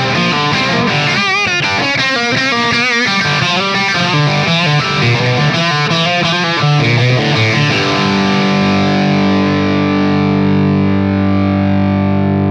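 Suhr Classic T electric guitar played through a CAA OD-100 Classic Plus 100-watt amp head on its overdrive channel. It plays a quick distorted lead line with string bends and vibrato, then about eight seconds in settles on a held note that sustains.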